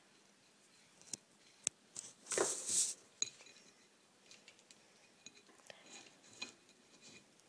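Handling sounds of a glass jar being wrapped with twine: sharp clicks and clinks of the glass, and a brief, louder scraping rustle about two and a half seconds in, followed by faint scattered ticks.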